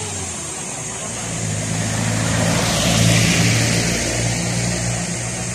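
A motor vehicle engine that grows louder to a peak about three seconds in, then eases off.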